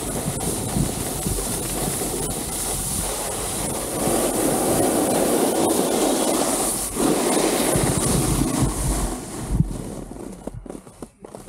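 Skis sliding and scraping over packed snow at speed, with wind rushing on the microphone. About ten seconds in the rush dies away into a few scattered clicks and knocks as the skier slows.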